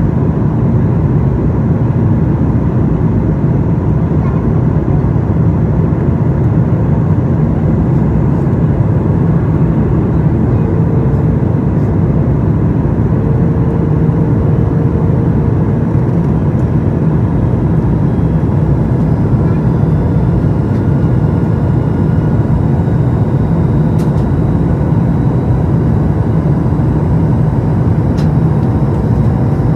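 Steady cabin noise inside a Boeing 737 MAX 8 airliner on descent: its CFM LEAP-1B turbofans and the rush of air past the fuselage, an even low rumble with faint steady hums above it.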